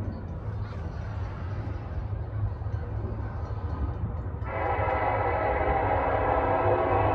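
Norfolk Southern EMD SD70ACe diesel locomotive sounding its multi-chime air horn: one long chord of several notes that starts about two-thirds of the way in and is still going at the end. Before the horn there is only a low steady rumble.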